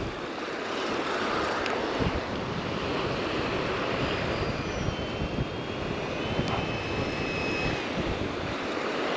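Small surf washing onto a sandy beach, a steady rush with wind buffeting the microphone.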